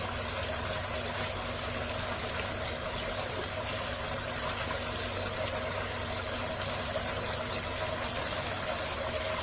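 Rain-curtain waterfall fountain running: a steady wash of falling water with a faint, steady hum from its pump underneath.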